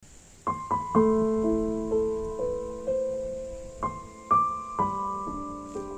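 Piano music: single notes and chords struck at an unhurried pace, each ringing on as it fades, beginning about half a second in.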